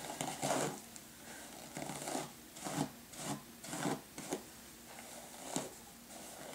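Denman paddle brush drawn through long hair: a series of short rubbing brush strokes, irregularly spaced, with a few pauses between them.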